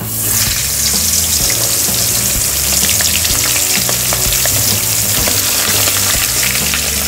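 Raw fish heads sizzling in hot oil in a wok: the frying starts abruptly as they go in and carries on as a steady hiss.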